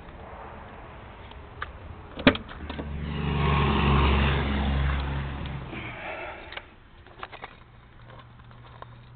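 A sharp click a little over two seconds in, then a few seconds of louder rumbling and rustling as a car door is opened and someone climbs into the driver's seat. After that, a faint steady low hum.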